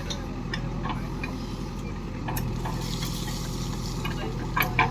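Diesel engine of farm machinery running steadily, with scattered clicks and knocks and two louder clicks near the end.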